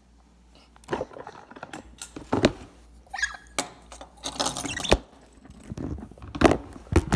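Handling noise: irregular clicks, knocks and rattling as a phone camera and hard plastic objects are moved about, with a short high squeak about three seconds in.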